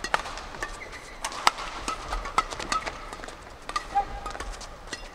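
A badminton rally: rackets strike the shuttlecock with sharp cracks about a second apart, and shoes squeak briefly on the court floor between the hits.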